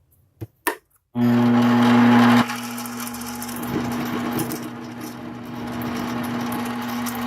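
Two short clicks, then a mini lathe's motor switches on about a second in with a steady hum. After about another second the hum drops a little and runs on with a rougher, busier texture as the tool trims the end of a threaded rod.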